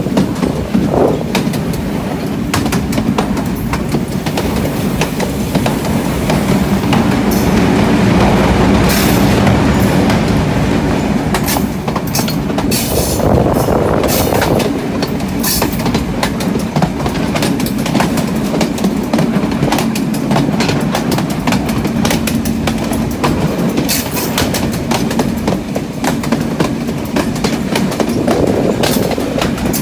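Diesel locomotive running along the track, heard from the cab: a steady engine drone, with the wheels clicking and clattering over the rail joints.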